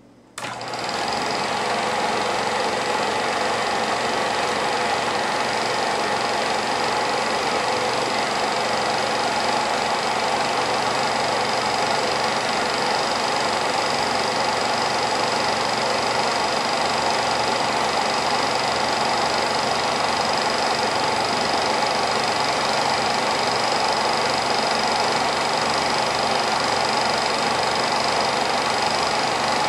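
Home-movie film projector running: a steady mechanical whir with a fast, even chatter from the film advance, starting about half a second in.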